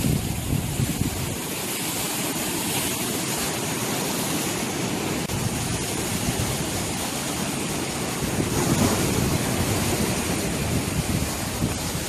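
Rough sea waves surging and breaking against a rocky shore: a continuous rush of surf, with a louder surge of breaking water a little past the middle.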